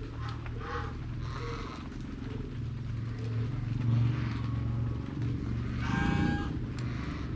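Drizzling rain ambience under a steady low rumble, with farmyard birds calling: short calls about a second in and a louder, longer pitched call about six seconds in.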